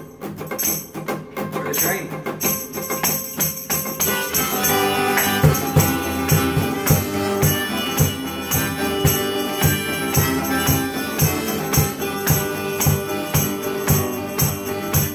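Instrumental folk music: an acoustic guitar strummed in a steady rhythm, with a harmonica coming in about four seconds in and holding notes over the strumming. From then on a low thump lands on the beat about twice a second.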